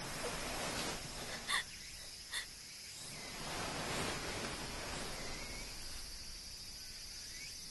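Crickets chirring steadily in a summer garden. A few short sniffles from a crying girl come in the first two and a half seconds.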